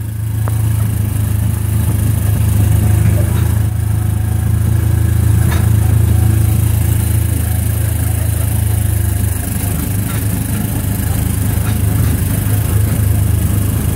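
Small gasoline engine of a Disneyland Autopia car running steadily at cruising speed, heard from the seat. It is a loud low drone, and its pitch shifts slightly about nine seconds in.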